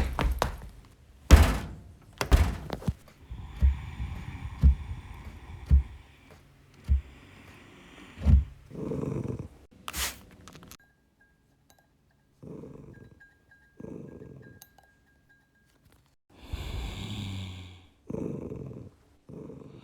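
Home-made Foley sound effects: a run of knocks and thuds, then several breathy snorts and growly exhales, each about a second long, made to stand in for dinosaurs. A faint thin steady tone sounds for several seconds in the middle.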